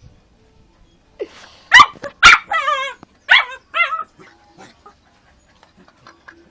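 A dog barking and yipping in a quick run of short, loud calls, some with a wavering pitch, about two to four seconds in, while play-fighting with a duck.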